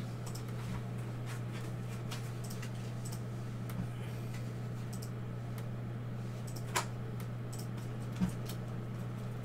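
Steady low electrical hum with a few faint, scattered clicks and taps, the sharpest two about two-thirds of the way through and near the end.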